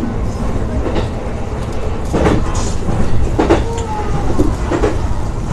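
Electric commuter train running on the Nambu Line, heard from the front car: a steady low rumble with a few sharp clicks as the wheels cross rail joints.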